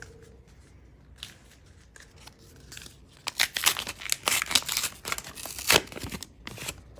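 A trading-card pack wrapper being opened: a few faint handling clicks, then from about three seconds in a dense run of crinkling and tearing as the wrapper is pulled open.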